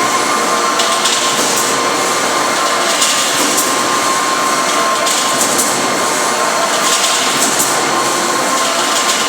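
SUMAB automatic wire-mesh welding line running: a steady machine drone with a constant whine, broken by short bursts of hiss about every two seconds as the line cycles.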